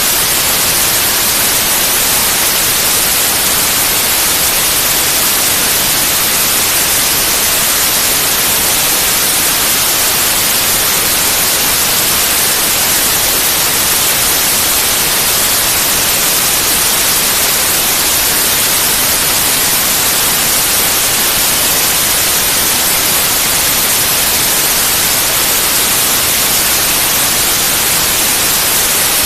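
Pure white noise: a steady, even hiss across the whole range of pitch, unchanging throughout.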